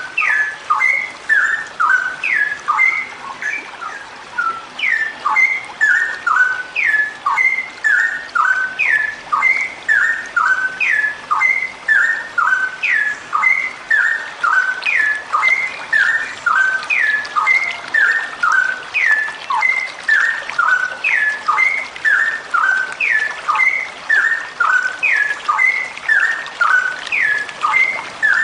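Female straw-headed bulbul (cucak rowo) calling in a long, unbroken run of short, quick phrases, each a few sharp falling notes, repeating about twice a second. This is the continuous, rapid calling that keepers call 'gacor ropel' and play to stimulate their own cucak rowo to sing.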